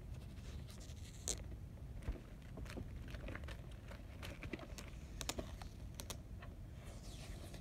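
Faint, irregular clicks and scratches of a key picking and cutting at the security sticker and wrapping on a plastic DVD case.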